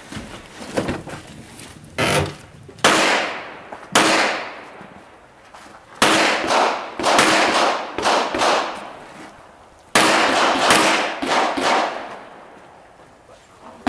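Handgun shots on an outdoor range, each with a ringing tail. Three spaced shots come first, then two fast strings of several shots each, with a pause of about two seconds between them.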